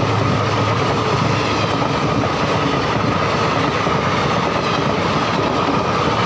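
Indian Railways passenger coaches rushing past close by at speed, their wheels and rails making a loud, steady rumble and clatter. A steady high tone runs through it.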